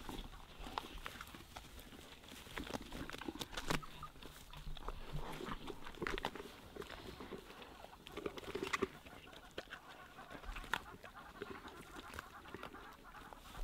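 African wild dogs feeding on a freshly killed impala: scattered crunching and tearing sounds, with occasional short animal calls.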